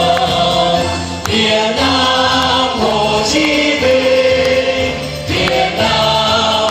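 A song sung by a group of voices over musical accompaniment, with the notes held and moving in steps, and the audience clapping along.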